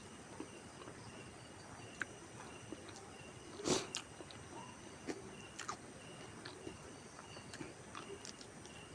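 Faint eating sounds: chewing and small clicks of food and utensils, with one louder sharp knock a little under four seconds in.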